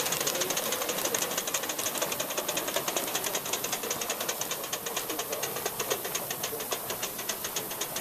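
Gauge 1 live-steam LMS Black Five model locomotive running, its exhaust chuffing in a quick, even beat of several puffs a second with steam hiss.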